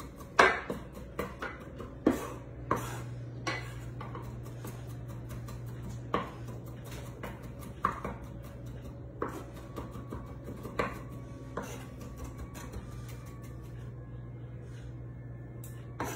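Chef's knife mincing garlic on a wooden cutting board: sharp taps of the blade on the board, quick at first, then sparser, about one a second.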